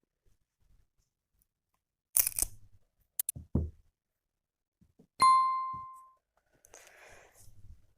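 Handling sounds: a short rustling tear, a couple of clicks and dull knocks, then a single sharp ding that rings and fades over about a second, followed by softer rustling.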